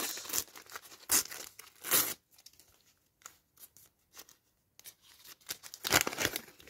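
A Topps Champions League sticker packet being torn open by hand: short paper rips about one and two seconds in, a quieter stretch of small rustles, then a louder run of tearing near the end as the wrapper is pulled apart.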